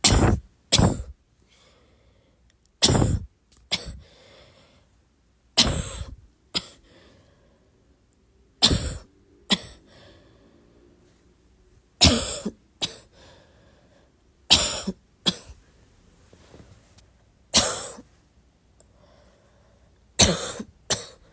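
A person coughing in short bouts about every three seconds, eight bouts in all, most of them two coughs in quick succession.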